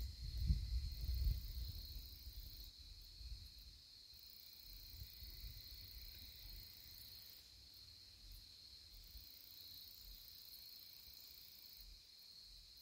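A steady, faint chorus of insects, a high continuous trilling. In the first couple of seconds there is also a low rumble with a few thumps on the microphone.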